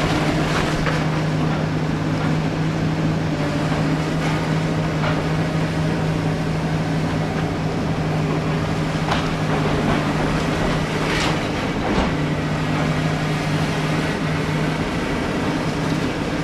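Excavator's diesel engine running at a steady pitch, with several scattered knocks and clanks from the machine as it works.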